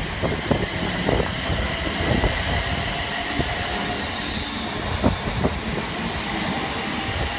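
London Northwestern Railway Class 350 electric multiple unit running past and away along the platform: a steady rumble with a faint high whine and a few sharp wheel clicks. Wind buffets the microphone.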